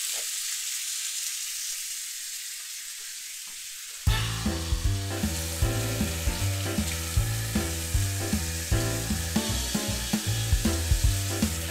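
Bacon strips sizzling in a preheated cast iron skillet, a steady frying hiss. About four seconds in, background music with a steady beat comes in and is louder than the sizzle.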